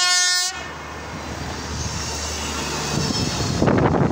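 Electric multiple unit's horn finishing its low note, which cuts off about half a second in. The train's running noise then builds steadily as it approaches and is loudest near the end as it passes close by.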